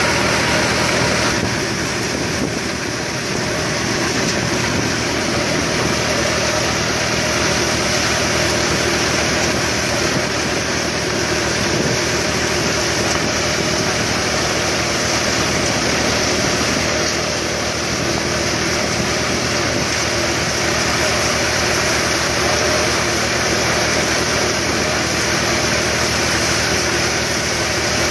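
Tractor-driven harambha thresher running steadily under load as crop is fed in: the tractor engine's drone mixed with the whirring threshing drum and blower and the rushing hiss of straw and chaff being blown out.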